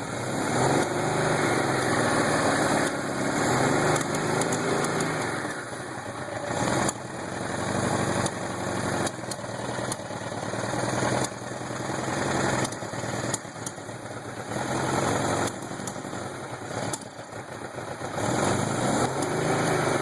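1979 Suzuki GS750L's air-cooled inline-four engine revved again and again, its level rising and falling, with sharp pops breaking in during the revs. The popping comes whenever the throttle is opened and appeared after a carburettor rebuild.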